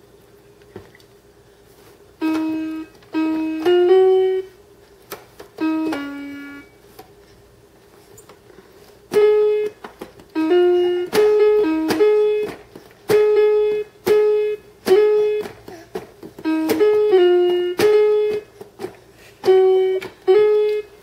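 VTech Baby's Creativity College activity toy playing short electronic notes as its letter keys are pressed, each note starting with a click. A few notes come about two seconds in, then after a short pause a quick run of notes follows.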